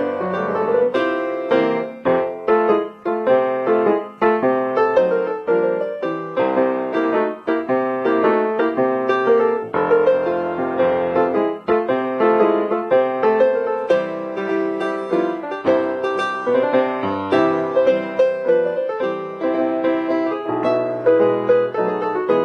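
Piano music accompanying the silent film, a busy run of quick notes.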